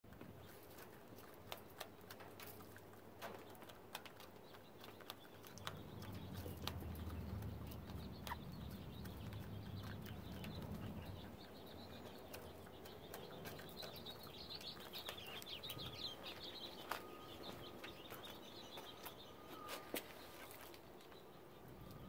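Chickens pecking feed from a PVC trough: scattered, irregular sharp taps of beaks, with a high chirping call in the second half.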